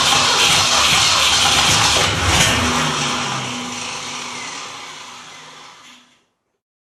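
Car engine cranking as it tries to start; the sound fades away and stops about six seconds in.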